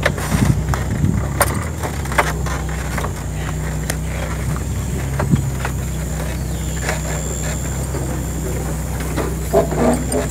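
Small pickup truck driving slowly over rough pasture: the engine drones steadily, with scattered knocks and rattles from the bouncing load bed.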